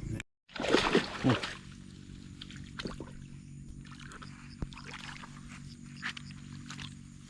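After a brief cut-out, water splashes and sloshes loudly about a second in. A steady low hum and a few light knocks follow.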